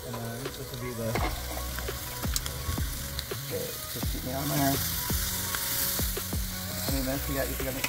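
Chicken sizzling over hot charcoal on a Weber kettle grill, with scattered clicks and scrapes of metal tongs on the grate as the pieces are turned. The sizzle grows louder about halfway through.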